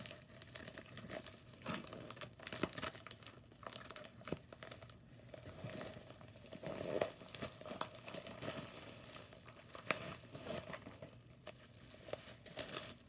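Plastic shipping mailer being cut open with scissors, then crinkled and rustled as the bubble-wrapped contents are pulled out: irregular crackling throughout, with louder bursts about seven and ten seconds in.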